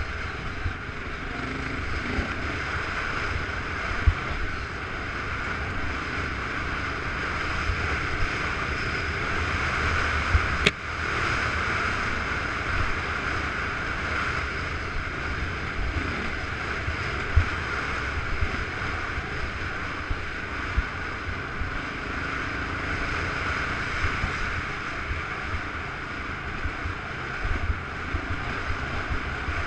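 Steady wind rush over the camera microphone and rumble from travelling a rough dirt trail, with frequent low thumps from bumps and one sharp knock about eleven seconds in.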